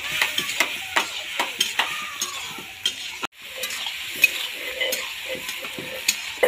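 Goat boti frying and sizzling in a metal wok, stirred with a metal spatula that clicks and scrapes against the pan many times. The sound drops out for a moment a little past halfway.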